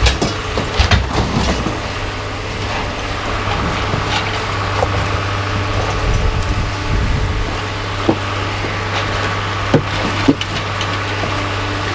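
Scraping and scattered knocks of a truck bed being swept out, over a steady low engine hum.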